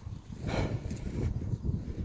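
Footsteps of a person walking, with wind buffeting the microphone as an uneven low rumble and a brief hissing gust about half a second in.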